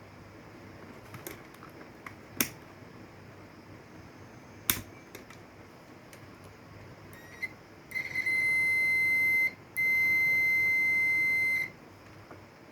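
A few sharp clicks, then two long, steady high-pitched electronic beeps with a short break between them.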